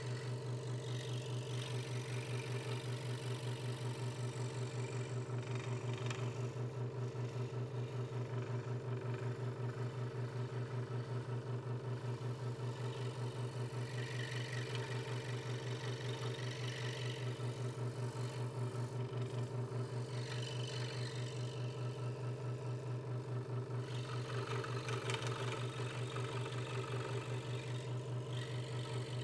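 Hegner Multicut 2S scroll saw running at a steady, fast-pulsing hum, its blade cutting letters out of a thin wooden board. The hiss of the blade in the wood comes and goes several times as the board is turned and fed.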